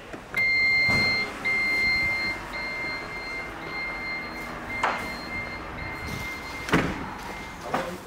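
Citroën C4 Grand Picasso's powered tailgate closing: its motor hums while a high warning beep sounds with short breaks, then the tailgate shuts with a loud thud near the end.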